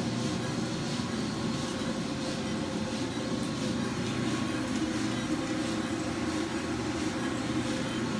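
A Diedrich drum coffee roaster running mid-roast: the steady drone of its drum motor and fans.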